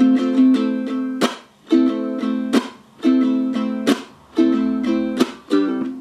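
Ukulele tuned with a low G, strummed in a chord progression: each chord is struck sharply and left to ring, with a short dip before the next chord.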